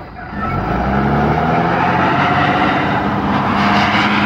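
Large truck engine revving up about half a second in, then running steadily at high revs under load as the truck pushes its wheels through deep mud.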